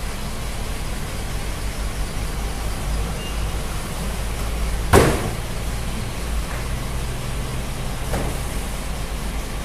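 Cartons of bottled motor oil being set down and stacked, with a sharp thud about five seconds in and a lighter one near the end, over a steady low rumble.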